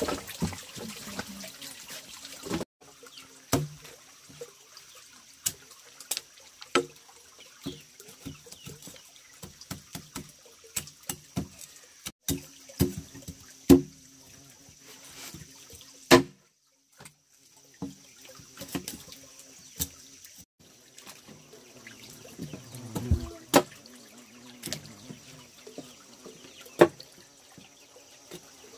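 Water trickling and splashing, with many irregular knocks and clinks.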